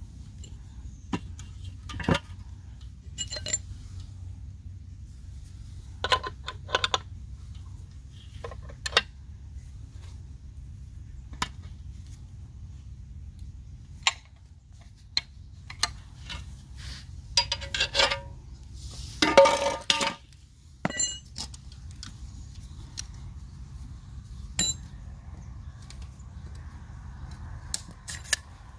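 Scattered metallic clinks and clatters of hand tools and metal fixings being picked up and handled, with a denser rattle lasting about a second and a half roughly two-thirds of the way through, over a steady low rumble.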